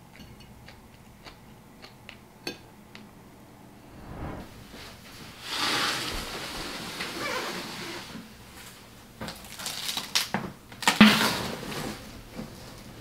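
A knife and fork clicking lightly against a plate, then a cardboard shipping box being handled and pulled open: a long scraping rustle, followed by a run of knocks and a loud thump near the end.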